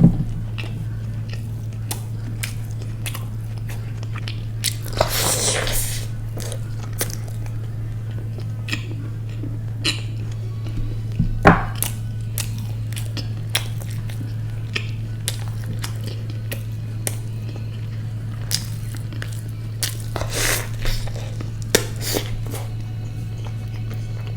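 Close-miked chewing and biting of a fried kachori, with scattered small mouth clicks and two longer crunchy stretches, about five seconds in and again near the end, over a steady low hum.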